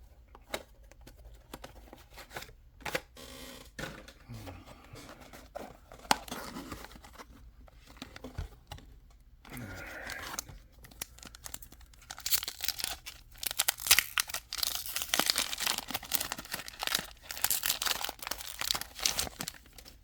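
Foil booster-pack wrappers being torn open and crinkled by hand, with scattered handling clicks and rustles; the tearing and crinkling is densest and loudest over the last third.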